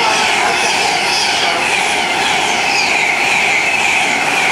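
A train running past close by, loud and steady, with a high whine that slowly falls in pitch.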